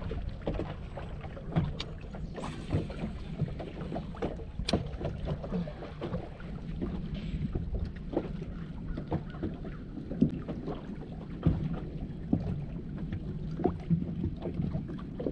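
Water slapping against the hull of a bass boat in choppy water, irregular knocks and splashes over a steady low rumble of wind on the microphone.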